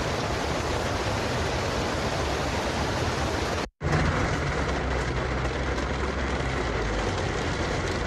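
Steady noise of heavy rain and flowing floodwater, recorded on a phone. It cuts out for a moment just under four seconds in and resumes with a low rumble underneath.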